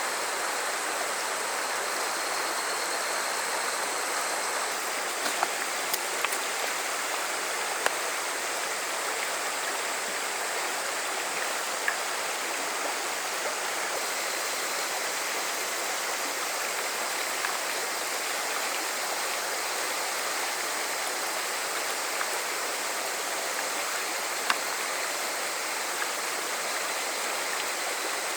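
Small river flowing with a steady rush of water, with a few faint clicks scattered through it.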